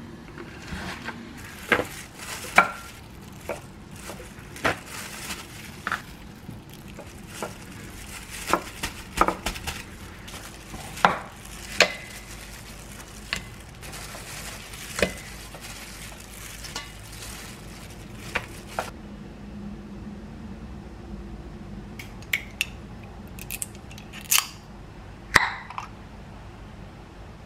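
Pieces of beef short rib being laid into a stainless steel pot, giving irregular clinks and knocks of bone and meat against the metal, with a few quicker clicks near the end.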